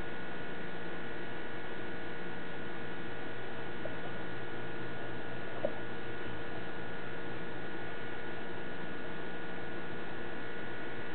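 Steady electrical hum with hiss, several fixed tones held unchanged throughout, with a faint click about four seconds in and another a little before six seconds.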